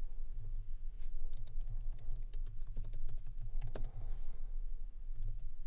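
Typing on a computer keyboard: a quick, irregular run of key clicks, over a low steady hum.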